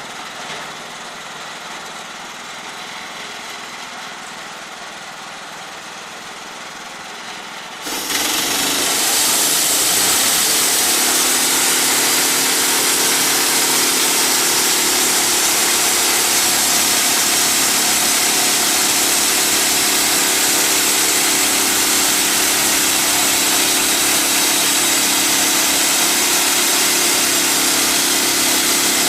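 Wood-Mizer portable bandsaw mill running steadily, then about eight seconds in the sound jumps abruptly much louder into the steady hiss and whine of the band blade sawing through a log.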